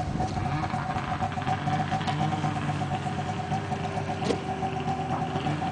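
Snowmobile engine with an aftermarket MBRP exhaust can idling steadily, with a constant high tone running over the low exhaust note.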